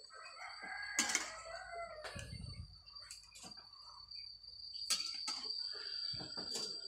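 A rooster crows once, starting about half a second in, with a falling end. A metal spatula clinks against a wok about once a second while greens are stirred, and a steady high-pitched tone runs throughout.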